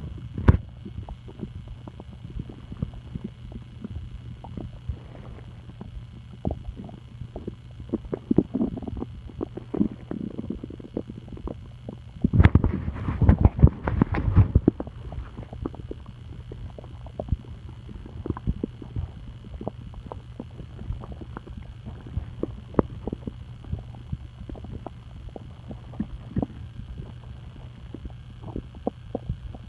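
Stomach gurgling: irregular bubbly pops and rumbles over a steady low hum, with a louder stretch of gurgling lasting about two seconds a little before halfway.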